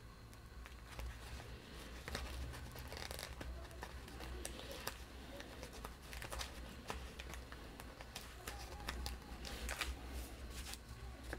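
Paper rustling and crinkling as a printed kit sheet is bent and handled, with soft scattered clicks as small cut-out pieces are picked from it.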